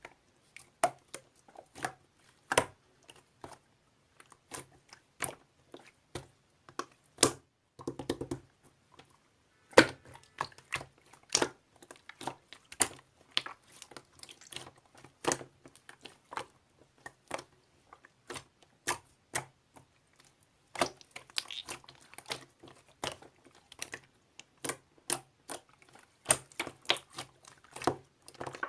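Clear slime being squished and poked by hand, giving irregular sharp clicks and pops. The clicking thickens about two-thirds of the way in.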